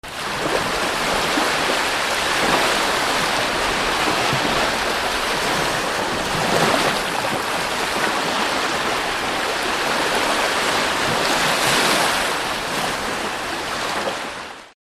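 Ocean surf: waves breaking and washing onto the shore, swelling louder three times.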